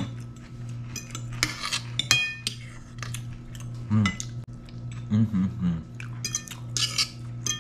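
Metal forks scraping and clicking against plates as food is picked up, in many short, irregular strokes.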